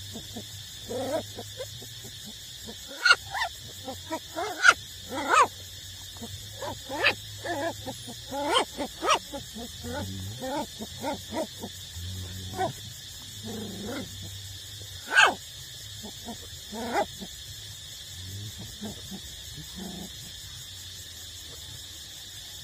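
Young puppies yipping and whining in many short, pitched calls, with a few louder yelps.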